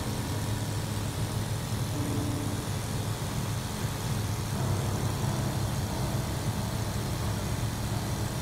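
Single-engine light aircraft's 235 hp engine and propeller running steadily in cruise flight, a constant low drone with wind and airframe noise, heard inside the cockpit.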